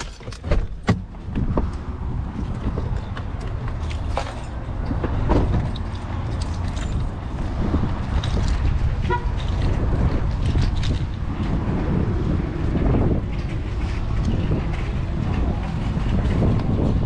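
A car being driven, with a steady low rumble of road and engine noise. A few sharp clicks and knocks come in the first second or so.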